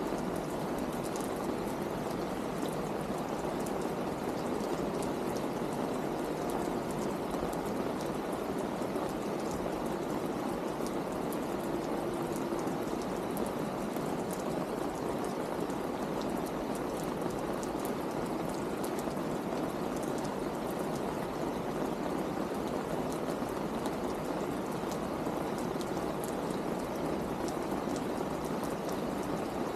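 Steady rain falling, with water running off and scattered drops ticking.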